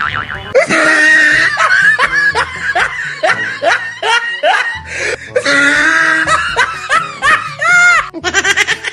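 Laughter in a quick run of pitched 'ha' strokes, about three a second, over background music with a stepping bass line. The laughter breaks off abruptly about eight seconds in.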